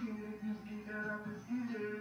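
Music: a man singing long held notes.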